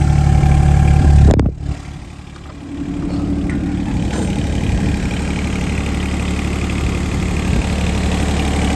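Yanmar diesel engine of a John Deere 17D mini excavator idling steadily. The sound drops away sharply about a second and a half in, then comes back up to a steady idle within a couple of seconds.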